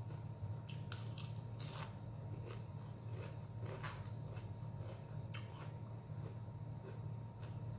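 Someone chewing a crisp fried spring roll: a string of short crisp crunches, most frequent and loudest in the first few seconds and thinning out towards the end. A steady low hum runs underneath.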